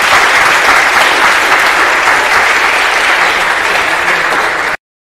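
Audience applauding, a steady clapping that cuts off suddenly near the end.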